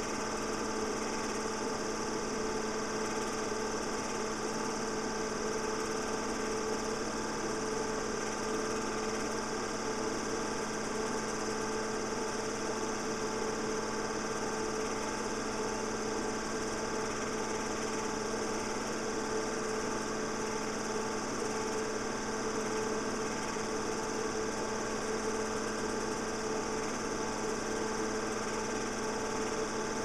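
A home-movie film projector running with a steady mechanical whir and hum.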